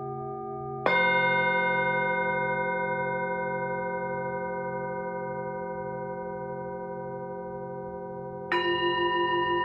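Singing bowls struck twice, about a second in and again near the end. Each strike rings on with several overtones that fade slowly with a wavering beat, over an earlier bowl still ringing.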